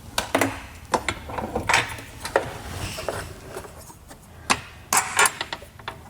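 Scattered sharp metallic clicks and clinks of hand tools and parts being handled, about half a dozen in all, with a louder cluster near the end.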